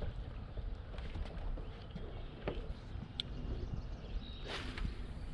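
Low wind rumble on the microphone with a few light knocks and clicks, and a short hissing rush about four and a half seconds in.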